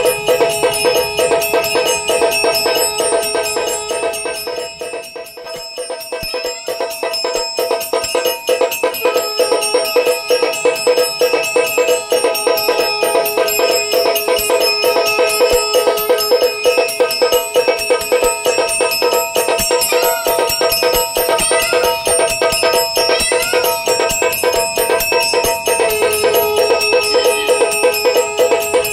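Automatic aarti machine running: a brass bell struck rapidly and continuously by a mechanical clapper, with drumsticks beating a steel drum, giving a dense ringing rattle. The sound dips briefly about five seconds in, then comes back up to full level.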